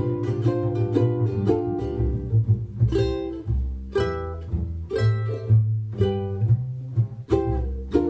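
Ukulele strumming chords over a plucked double bass line, in a 1920s jazz-style arrangement.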